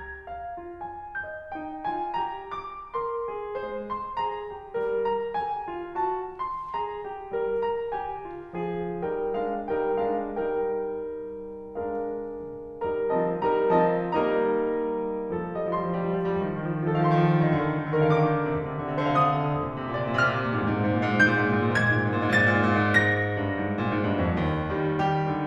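Piano music: a light melody of single notes that grows into fuller, busier playing about halfway through.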